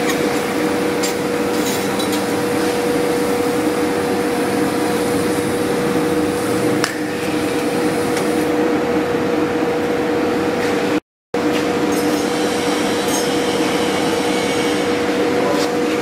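Steady workshop machinery hum with a constant mid-pitched tone, with a few light metal clinks over it; the sound cuts out for a moment about eleven seconds in.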